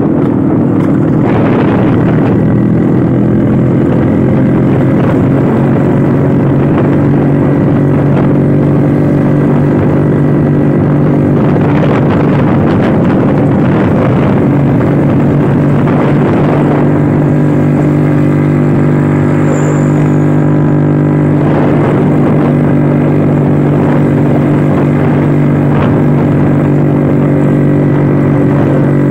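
Vintage Vespa scooter's two-stroke engine running at a steady cruising speed while riding, its note holding nearly even with small changes in pitch.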